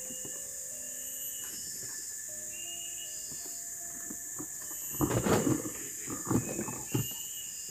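A steady high insect buzz with short chirps repeating about every second and a half. From about five seconds in, this is overlaid by louder rustling and knocks from a bucket and load being handled on a parked motorbike.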